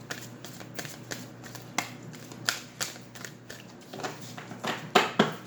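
A deck of oracle cards being shuffled by hand: irregular rustling and snapping of card edges, with a few sharper card slaps, the loudest near the end.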